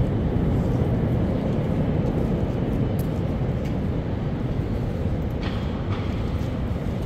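Loud, steady low rumble of a passing heavy vehicle on a city street, slowly easing off, with a few light clicks about three seconds in and again later.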